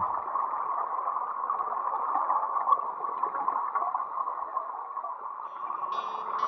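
Muffled underwater noise picked up through the action camera's waterproof housing: a steady, unpitched gurgling hiss with no low end. Music comes in near the end.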